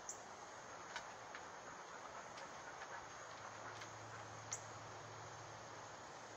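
Faint yard ambience: a steady high hiss with scattered soft ticks and two short high chirps, one right at the start and one about four and a half seconds in. A low hum joins about three seconds in.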